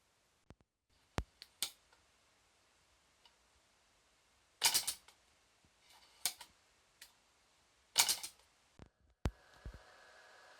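Homemade gas blowback airsoft gun: a few single sharp clicks, then three short rapid bursts of shots about a second and a half apart, and a couple more single clicks near the end.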